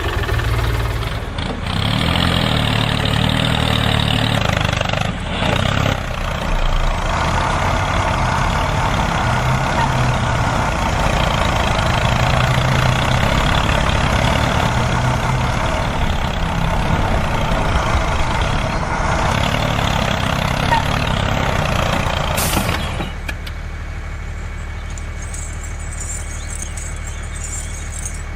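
A vehicle engine running continuously, then turning quieter and steadier near the end.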